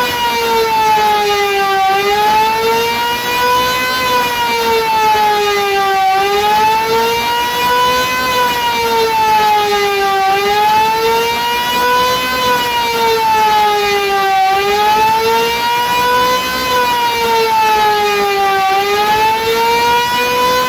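Restored Elektror S2a electric motor siren sounding the air-raid alarm: its loud wailing tone rises for about two seconds and falls for about two seconds, over and over.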